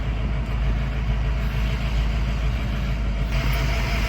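A vehicle engine idling steadily with a deep rumble, and more hiss joining about three seconds in.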